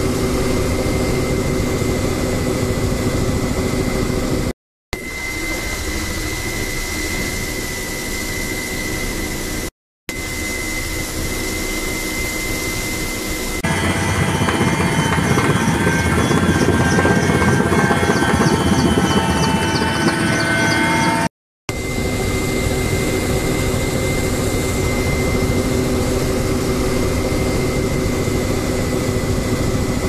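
Helicopter turbine and rotor noise heard from aboard a firefighting helicopter carrying a water bucket: a steady drone with a high whine. Three brief dropouts break it at edits, and in the middle stretch it is louder and richer in tones.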